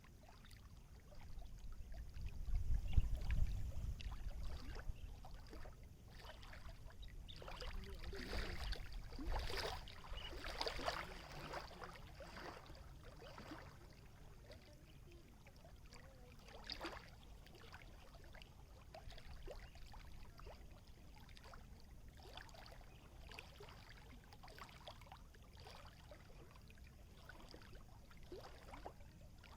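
Small water waves lapping and splashing, with irregular splashes that are loudest about eight to thirteen seconds in. A low rumble about two to four seconds in is the loudest sound.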